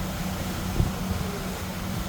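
Heavy diesel engine running steadily, with a single knock a little under a second in.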